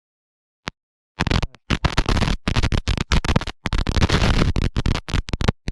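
Loud, choppy scratching and rubbing noise on a faulty GoPro's microphone, in dense bursts with short gaps. It comes after about a second of dead silence where the audio drops out, broken by one short click.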